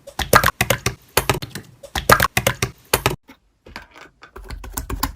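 Typing on a computer keyboard: quick, sharp key clicks for about three seconds, then a short pause and fainter, sparser clicks.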